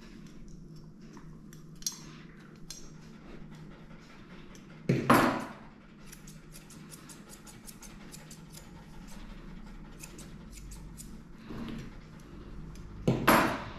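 Grooming scissors snipping through a Maltese's coat while the tail is trimmed: quick, irregular metallic snips, several a second, over a low steady hum. Two short, louder sounds come about five seconds in and again near the end.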